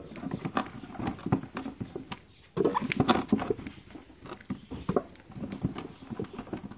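Irregular light knocks and clatter of cocoyam corms being settled in an aluminium cooking pot, a little louder about two and a half seconds in.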